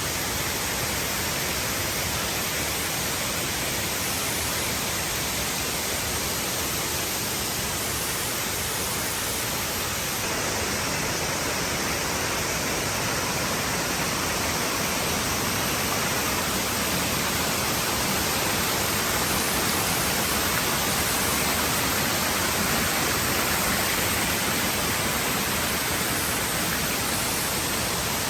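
Waterfall water rushing in a steady, even roar, growing slightly louder about ten seconds in.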